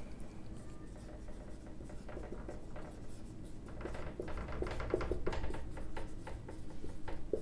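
Marker pen writing on a whiteboard: short scratching and rubbing strokes, busier in the second half.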